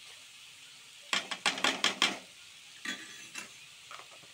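Chopped onions frying in oil and ghee with a faint steady sizzle. About a second in comes a quick run of loud metal spoon clinks and scrapes, with a few more single ones later, as red chilli powder is spooned into the pan.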